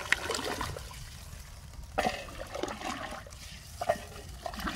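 Rice and boiling water sloshing and splashing in a large aluminium pot as a wooden paddle stirs it, with a few sharp knocks of the paddle against the pot.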